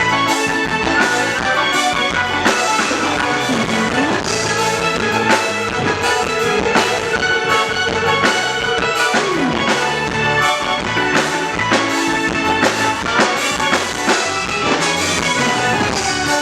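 Band music without singing: a drum kit keeps a steady beat under a lead instrument that slides up to a long held note about four seconds in and slides back down near the middle.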